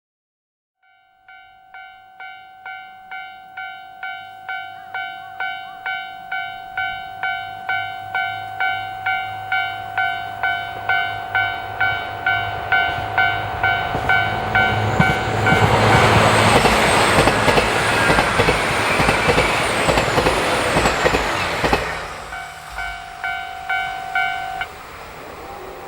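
Level crossing warning bell dinging about twice a second, growing louder, as a diesel train approaches. The train passes for about six seconds in a loud rush of wheel and engine noise that drowns the bell, and after it has gone the bell keeps dinging until it stops near the end.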